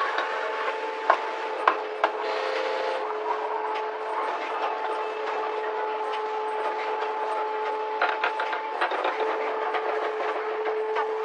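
Banknote production machinery running: a steady mechanical hum with a constant tone, broken by sharp clicks about a second in and a short run of clicks and clatter about eight seconds in.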